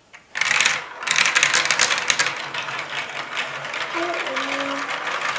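Many plastic marbles released together clatter down a Hubelino and Duplo marble run. A sudden burst of rattling about a third of a second in becomes a dense, rapid clicking of marbles on plastic track that slowly thins out.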